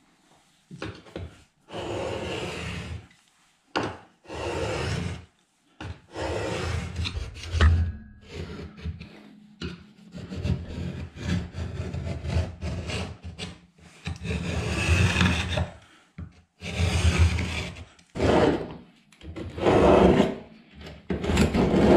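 An old screwdriver scraping out the grout lines between floor tiles, about a dozen rasping strokes of roughly a second each with short pauses between them. The grout is being scored so that a single tile can be broken out without damaging its neighbours.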